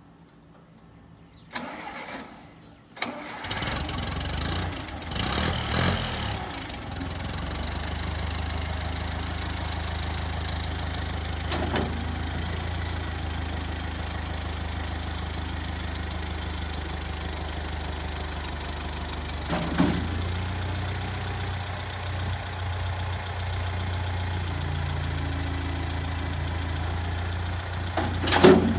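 Massey-Ferguson MF204 utility tractor's engine cranking and starting about three seconds in, revving unevenly for a few seconds, then settling into a steady idle. A few short knocks come through the idle.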